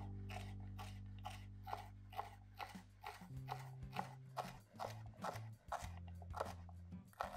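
Music: a sustained bass line that changes notes, under a steady beat of sharp clicking percussion.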